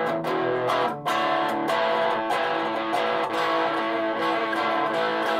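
Electric guitar played through a Donner 5-watt mini amp on its distortion channel, picked up by a room mic: distorted chords struck and left to ring, re-struck every second or so. The guitar does not sound quite in tune to the player.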